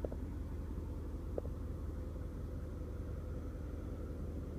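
Steady low background rumble with a hiss above it, broken by two faint short ticks about a second and a half apart.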